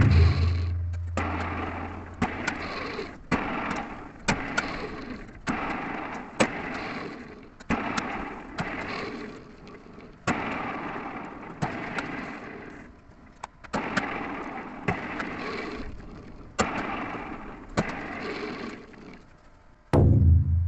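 A threading die being worked by hand over a steel hex bar, finishing an M12×1.5 thread: repeated scraping cutting strokes about once a second, each starting with a sharp click and fading away. The lathe motor hums briefly at the start and starts humming again near the end.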